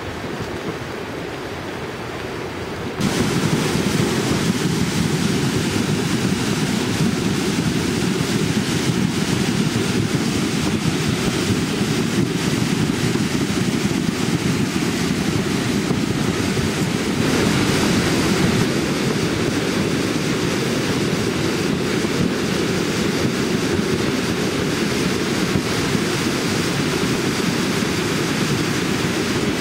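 Mountain torrent in flood: muddy water rushing steadily, a dense even roar that gets louder about three seconds in.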